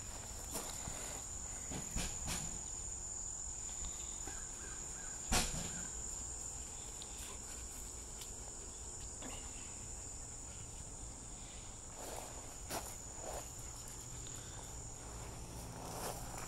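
Steady high-pitched trilling of insects, with scattered crunches of paws and feet on pea gravel and one sharp knock about five seconds in.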